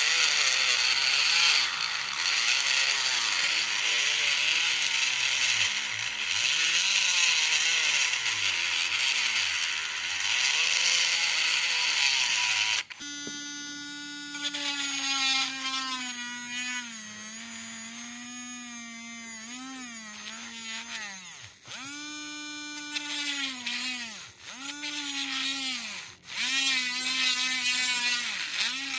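Homemade mini drill's small DC motor running: a rough, noisy spell for about the first thirteen seconds, then a steady whine that cuts out and spins back up three times near the end.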